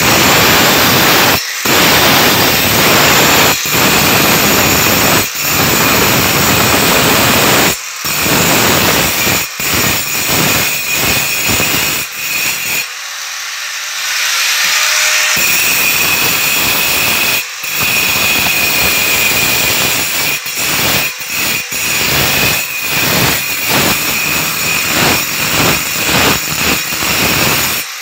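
Angle grinder with a diamond blade cutting into marble: a loud, harsh grinding broken by many short gaps as the blade is eased off and back onto the stone. About halfway through the grinder is lifted clear and runs free with a higher whine for a couple of seconds, then bites into the marble again.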